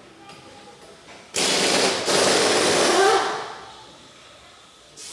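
Pneumatic impact wrench hammering in two loud bursts, starting about a second and a half in and dying away after about three seconds.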